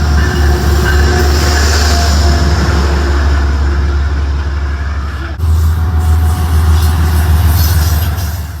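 A Metro-North commuter train running close by at the station platform: a loud, steady low rumble with hiss, dipping briefly about five seconds in.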